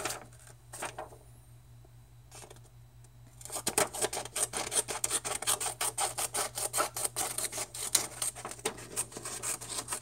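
Small spring-loaded multi-tool scissors cutting through a sheet of paper, crisp snips and paper crunching in a fast steady run starting about three and a half seconds in, after a few light clicks of the paper being handled.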